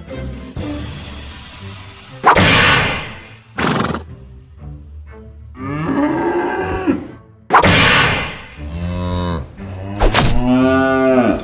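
Four sharp clanging crash sound effects as toy cars bump together, with cow moos between the later crashes, the last one right after the final clang.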